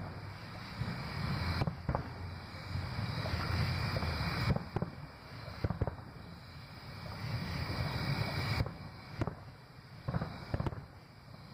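Aerial firework shells bursting in a fireworks display: a string of sharp bangs, several coming in close pairs, over a continuous low rumble of booms.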